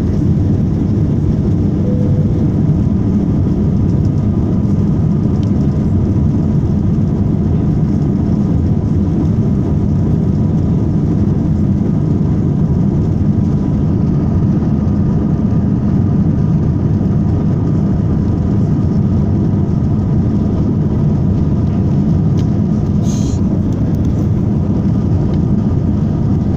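Airbus A321 at takeoff thrust heard from inside the passenger cabin: a loud, steady low rumble of the jet engines and airflow, with faint steady tones above it. A brief higher rustle comes about two-thirds of the way through.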